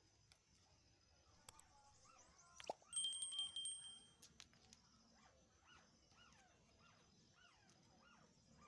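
A broken wooden broom-handle stub being worked out of the hole in a wooden broom head: a sharp click, then a high squeak of wood rubbing on wood for about a second.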